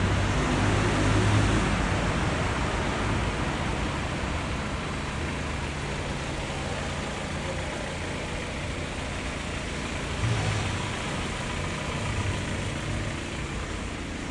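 Car engine idling steadily, with a brief louder swell about ten seconds in.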